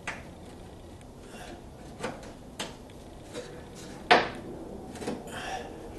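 Scattered small clicks and knocks of bolts and a metal mounting bracket being handled while bolts are started by hand into a car's front valance, with one sharper knock about four seconds in.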